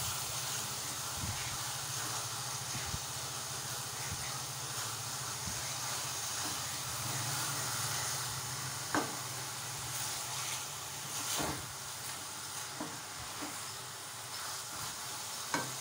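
White maash (urad) dal sizzling in hot oil in a non-stick pan as it is fried and stirred with a spatula, with a few sharp scrapes and taps of the spatula against the pan.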